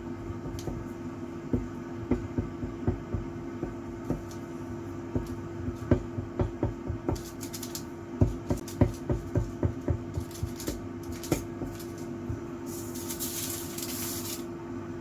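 Kitchen work sounds: irregular light knocks and taps over a steady hum, with a short rustling scrape near the end.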